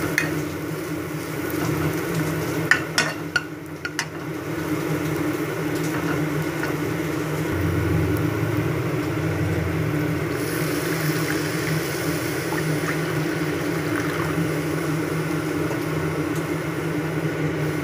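Spice paste frying in oil in a metal kadai, stirred and scraped with a metal spatula, with a few sharp spatula clicks about three seconds in. Partway through, water is added to the pan and the paste goes on cooking in the liquid, over a steady low hum.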